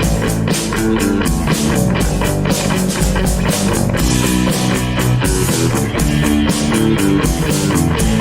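Rock band playing an instrumental passage: electric guitar and bass over a drum kit keeping a steady beat.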